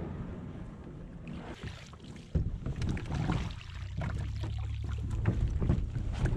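Knocks and bumps on a plastic kayak hull and its gear as a person climbs back aboard from standing and gets under way. From about two seconds in, a steady low rumble of moving water and wind on the microphone runs under the knocks as the kayak drifts off in the current.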